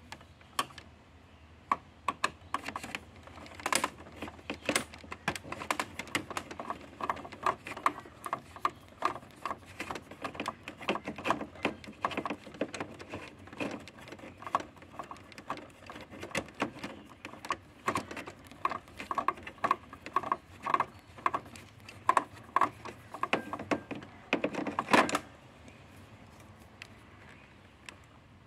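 Phillips screwdriver undoing a screw in a printer's plastic-and-metal chassis: a long run of small irregular clicks and scrapes, a few a second, with a louder clatter near the end.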